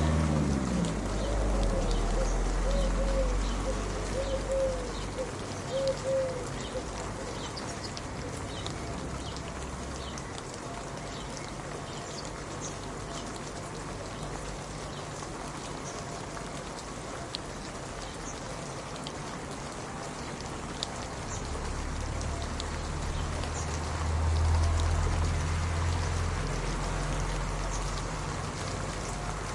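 Steady rain hissing, with individual raindrops ticking on a surface. A low rumble swells in the first few seconds, fades, and returns past the middle, and a short wavering tone sounds early on.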